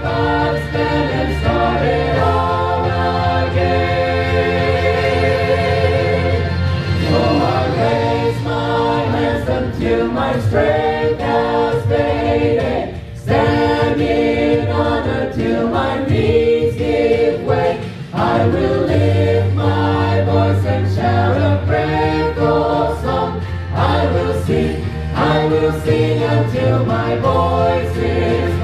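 Mixed-voice church praise team singing a worship song in harmony, several voices with vibrato over low sustained notes, the sound dipping briefly twice.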